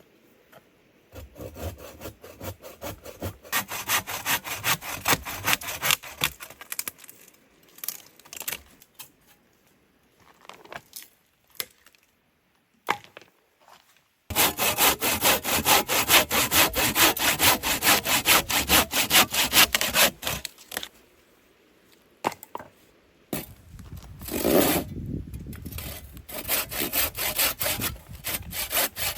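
Hand saw cutting firewood, in three bouts of quick back-and-forth strokes with short pauses between them.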